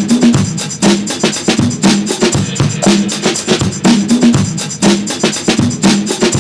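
Background music with a steady drum beat over a repeating bass line.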